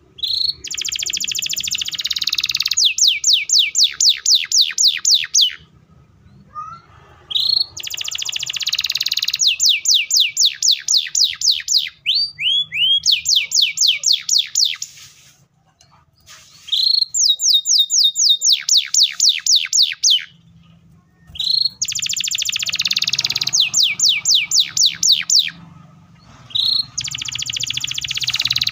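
Canary singing in long repeated song phrases with short pauses between them: each phrase opens with a rising note, runs into a dense buzzy trill, then a long roll of rapid descending notes at about six a second.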